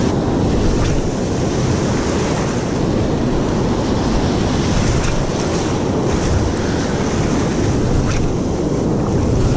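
Surf breaking and washing on a beach, with wind buffeting the microphone: a steady, loud rushing noise.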